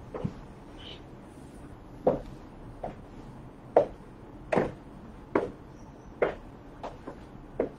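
Stiletto high heels clicking on a hard floor as a person walks, about one sharp step every 0.8 seconds, starting about two seconds in.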